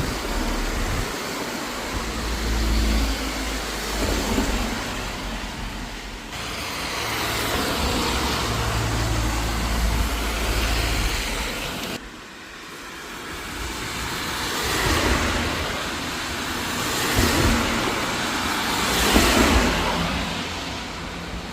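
Cars passing one after another on a rain-wet road, the hiss of their tyres swelling and fading several times over a low rumble of traffic.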